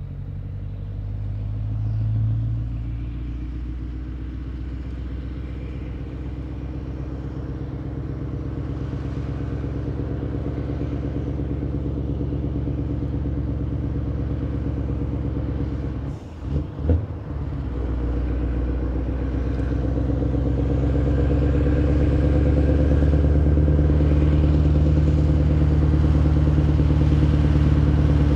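Scania V8 truck engine running at a low, steady pace as the truck and trailer roll slowly along, growing steadily louder toward the end. There is a brief break with a couple of knocks about sixteen seconds in.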